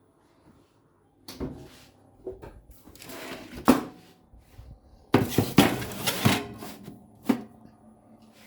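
Kitchen work sounds: a string of sharp knocks and clatters, with two longer scraping, rustling stretches about three seconds in and from about five to six and a half seconds in.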